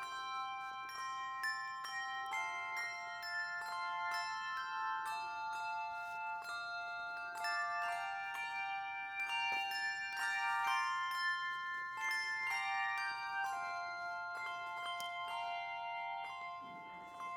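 Instrumental music played on bells or a mallet instrument: a slow melody of high struck notes that overlap and ring on.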